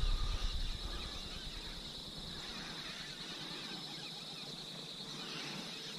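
Steady high-pitched insect chirring, as of crickets at dusk, with a faint low rumble that fades out in the first second.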